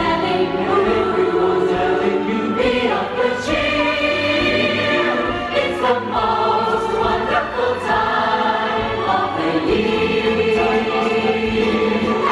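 A large choir singing together, loud and steady, with some long held notes.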